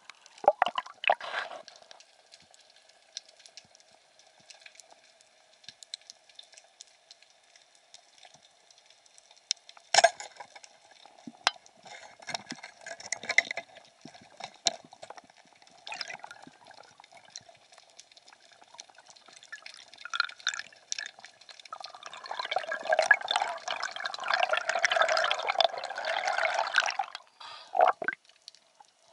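Water sounds: scattered drips and splashes over a faint steady hum, with a louder rush of water lasting about five seconds in the last third.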